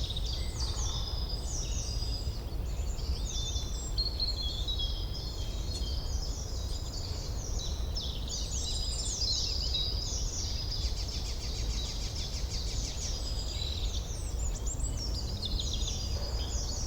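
Forest ambience of many songbirds singing at once, dense overlapping chirps and trills, over a low steady rumble.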